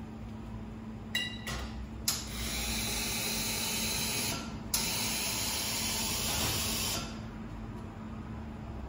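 Espresso machine steam wand purging: a short beep about a second in, then a loud hiss of escaping steam for about five seconds, briefly cut and restarted halfway, over a steady low hum.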